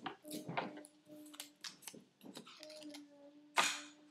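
Clicks and knocks of small things being handled on a kitchen table, with one sharp knock about three and a half seconds in. A faint, steady whining tone comes and goes twice underneath.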